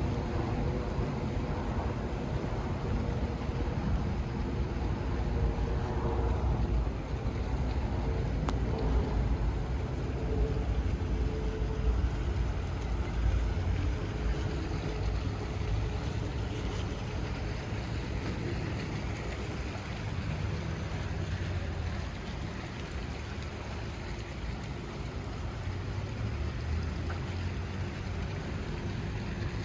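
Rainy city street ambience: a steady low rumble of traffic under an even hiss of rain and wind. A faint engine hum sits on top for the first ten seconds or so.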